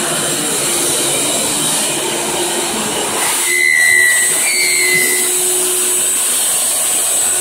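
Shop vacuum motor running steadily, blowing air through hoses into a homemade air-cushion furniture mover. Two brief high whistles come through about three and a half and four and a half seconds in.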